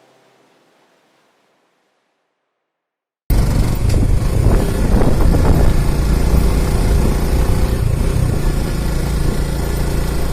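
Music fades out, and after about two seconds of silence the sound of a motorcycle on the move cuts in suddenly: the engine running under a heavy, steady low rumble.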